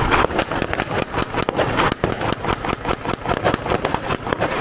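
An engine idling with an uneven, pulsing beat, about eight pulses a second.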